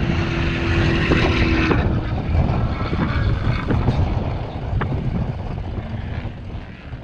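Off-road race vehicle engine running with a heavy low rumble and a few sharp knocks, fading out over the last two seconds.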